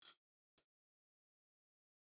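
Near silence, broken only by a faint short noise at the very start and a fainter brief click about half a second in.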